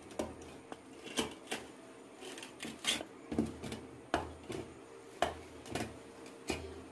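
Kitchen knife slicing a baked pizza on a steel plate: a dozen or so sharp clicks and taps at irregular intervals as the blade presses through the crust and knocks on the metal plate beneath.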